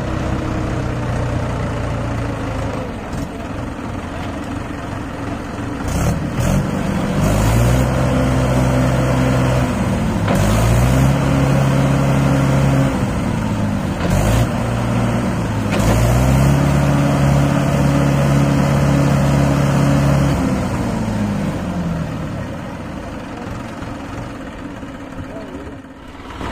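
Diesel farm tractor engine running at idle, then revved up and held three times for a few seconds each, with a short blip between, dropping back toward idle between revs and after the last one.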